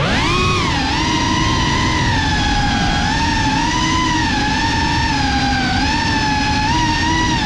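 FPV quadcopter's brushless motors and propellers whining close to the onboard camera. The pitch sweeps back up sharply at the very start, dips once, then wavers gently up and down with small throttle changes.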